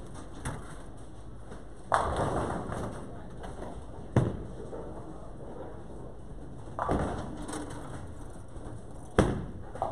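Bowling alley sounds: twice a bowling ball crashes into the pins with a clatter that dies away over about a second, and in between, sharp single thuds of balls landing on the wooden lanes, over a steady hall din.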